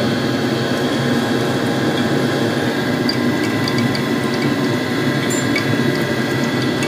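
A steady mechanical hum with an even rushing noise, a machine running continuously, with a few faint ticks.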